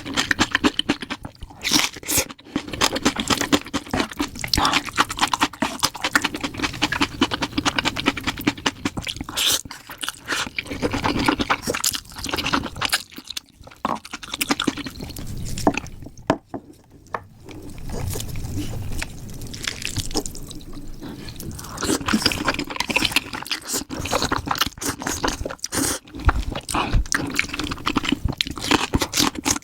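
Mukbang eating sounds played at double speed: a dense, fast run of chewing and crunching clicks, with a couple of short pauses about halfway through.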